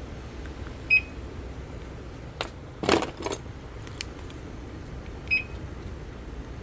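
Two short, high electronic beeps about four seconds apart, with a few sharp clicks and a light rattle of keys in between, as a Bentley flip key with its key ring is handled and its buttons pressed.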